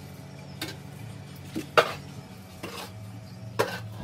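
Steel shovel scooping black moulding sand, scraping and knocking on the concrete floor: about five sharp metallic strikes roughly a second apart, the loudest near the middle, over a low steady hum.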